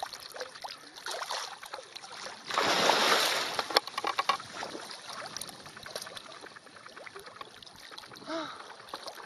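Water splashing and sloshing around an elephant wading through swampy water, with a louder rush of splashing lasting about a second, about two and a half seconds in.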